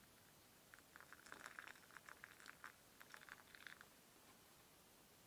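Faint, irregular crackling and popping from loose black tea leaves in a mesh strainer as freshly poured hot water soaks into them, lasting about three seconds. A single sharp knock comes right at the end.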